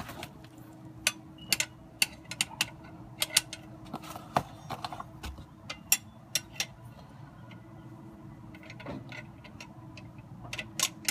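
Scissor jack being cranked under a ratchet handle to force a stuck transmission drain plug loose: irregular sharp metallic clicks and clinks, several a second in the first half, sparser after, then a few more near the end, over a faint steady hum.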